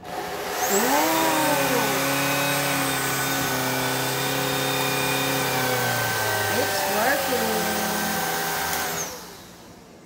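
Cordless stick vacuum switched on for a first test: its motor spins up over about a second to a steady whine with rushing air, runs evenly, then is switched off and winds down near the end.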